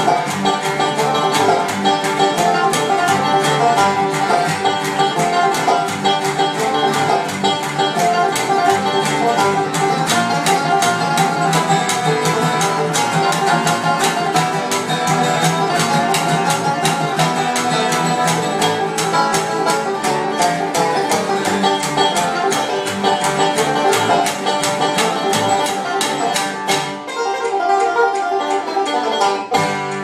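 Bluegrass-style string jam: banjo and acoustic guitar picking a fast tune over a plucked upright bass. Near the end the bass drops out and the playing thins.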